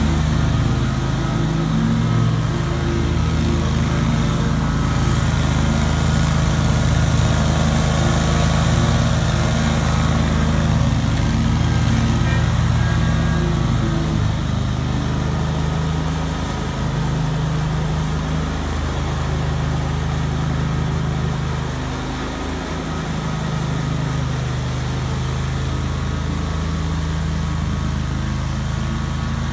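Great Dane Super Surfer 52-inch stand-on mower running at full throttle with its blades cutting tall, thick grass. The engine's pitch sags briefly several times as the load of the tall grass bogs it down, then recovers.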